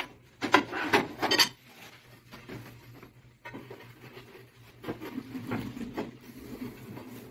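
Ceramic wall tiles being handled and set on a cement-adhesive wall: a few sharp scrapes and knocks in the first second and a half, then quieter rubbing and shuffling.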